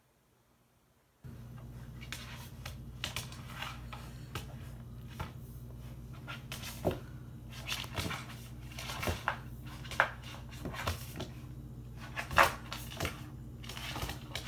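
Bernese mountain dog puppy chewing and pawing at a bone on a hardwood floor: irregular clicks and knocks of the bone on the wood, one louder knock near the end, over a steady low hum. The first second is near silent.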